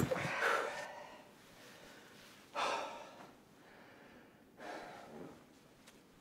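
An injured man gasping for breath: three laboured, ragged breaths about two seconds apart, each weaker than the last. A sharp click comes right at the start.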